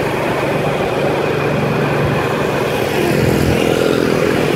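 Motorbike engine running steadily at low road speed, with road and wind noise. It swells slightly about three seconds in as another motorbike comes alongside.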